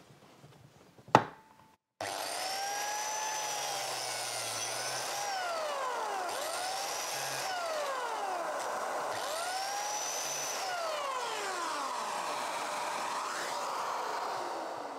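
DeWalt DW682K biscuit jointer running and plunge-cutting a biscuit slot into a melamine-faced particleboard panel. It starts abruptly about two seconds in, its pitch dips and recovers again and again as the blade works into the board, and near the end it winds down with a falling tone.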